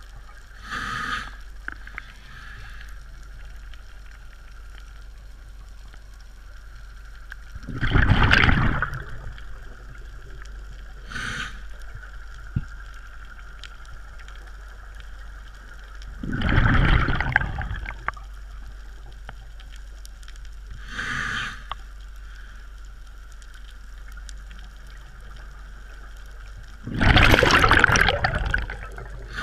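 Scuba diver breathing through a regulator underwater: three loud bubbling exhalations roughly nine seconds apart, each lasting about two seconds, with a shorter, fainter inhalation hiss several seconds before each.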